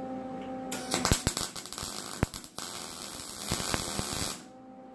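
MIG welder arc crackling and sputtering while tack-welding thin sheet-metal fender, starting about a second in and cutting off shortly before the end, with a brief break in the middle.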